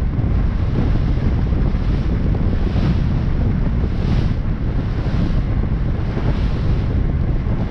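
Heavy wind buffeting the microphone over the rush of water past the hull of a harbor pilot boat underway, steady, with brief surges of hiss every second or two.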